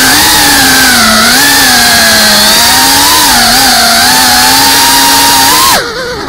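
FPV racing quadcopter's electric motors whining loudly, the pitch wavering up and down with the throttle. Near the end the pitch falls sharply and the sound dips as the motors spin down briefly, then it picks up again.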